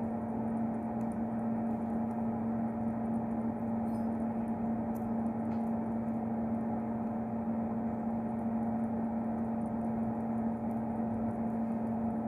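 Steady machine hum: a constant low tone with a fan-like noise under it, and faint light ticks scattered through.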